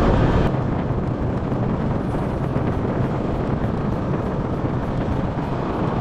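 Wind rushing over a handlebar-mounted microphone on a moving Honda scooter, with the scooter's engine running steadily underneath.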